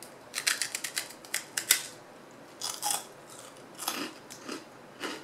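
Crunching of an airy puffed rice cracker being bitten into: a quick run of sharp crunches in the first two seconds, then slower, sparser crunches as it is chewed.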